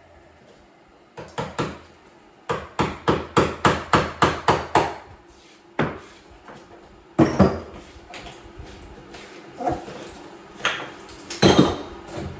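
Hammer strikes knocking out freshly set shower-wall tile: a quick run of about ten blows at roughly four a second, then scattered single and paired strikes, the loudest near the end.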